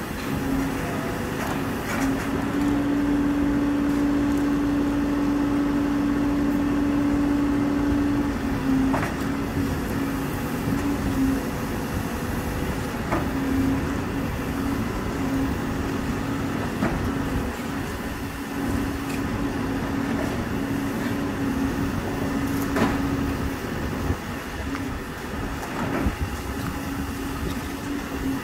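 Hidromek 102 S backhoe loader running as its backhoe arm digs, the engine and hydraulics making a steady drone with a held tone that is strongest for several seconds near the start, then comes and goes. Occasional sharp knocks from digging.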